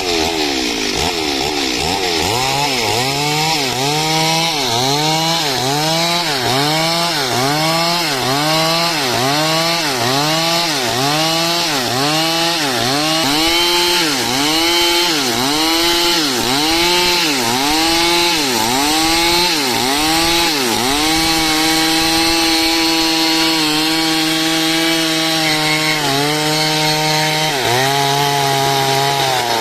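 Two-stroke chainsaw cutting dry wood under load. Its engine pitch dips and recovers about once a second, then from about two-thirds of the way through it holds a steadier pitch with only small dips.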